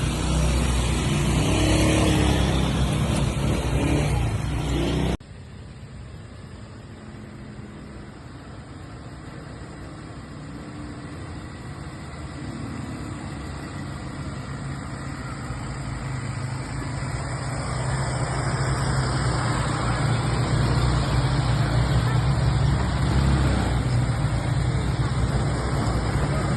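ATV engines running. The sound cuts off abruptly about five seconds in, then a quieter engine sound grows steadily louder.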